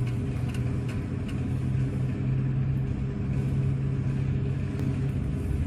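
Innovatec iron plate roll laminator running, its motor giving a steady low hum as the rollers turn with a sheet between them, with a few faint clicks in the first second and a half.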